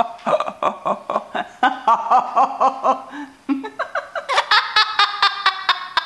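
A parrot laughing: a quick run of repeated laughing syllables, a short break a little after three seconds in, then a higher, brighter burst of laughs near the end.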